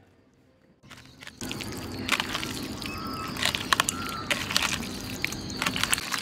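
Raw chicken pieces being squished and turned by hand in a thick yogurt-and-spice marinade in a stainless steel bowl: wet squelching with small clicks and knocks against the bowl, starting after a near-silent first second.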